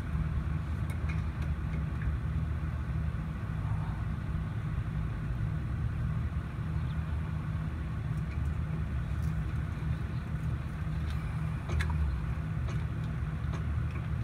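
Truck engine idling steadily, with a few faint metal clicks from a wrench turning the nut on the cage bolt of an air brake chamber.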